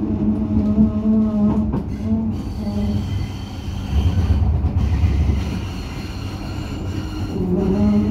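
Croydon tram running along the track, heard from inside the car: a constant low rumble that swells for a moment about halfway, with a low steady hum that rises in pitch near the end. A faint high-pitched wheel squeal runs through the middle few seconds.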